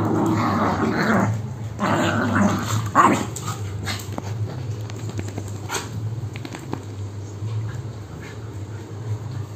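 A Labrador and a Beagle play-fighting, with rough growls in bursts over the first three seconds, then quieter scuffling with a few sharp clicks.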